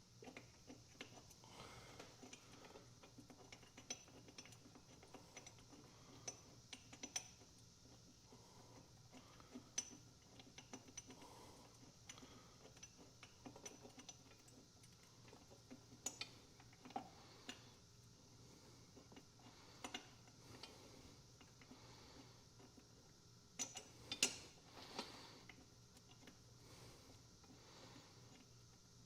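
Faint, scattered clicks and clinks of metal hand tools on bolts and brackets during an engine-mount job, with a louder cluster of clinks late on. A low steady hum sits underneath.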